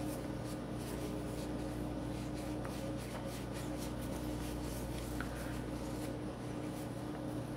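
Cloth rag rubbing over a polymer pistol frame in repeated irregular wiping strokes, wiping it down after scrubbing, over a low steady hum.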